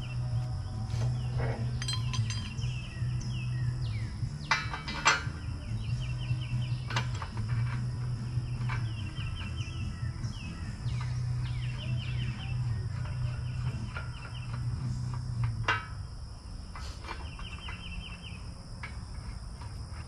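Scattered metal clanks and knocks as a heavy homemade steel tow hitch is handled and fitted onto a truck's front D-rings, two of them louder than the rest. Behind them come repeated short high chirps, a steady high drone and a low hum that comes and goes, stopping about two thirds of the way in.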